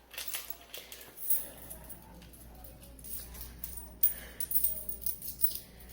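Small clicks and light metallic jingling from small metal objects being handled, with a sharper click about four seconds in followed by a cluster of jingles.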